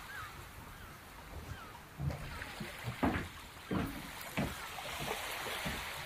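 Beach ambience of surf washing steadily, with a few short high chirps and several dull thumps near the middle.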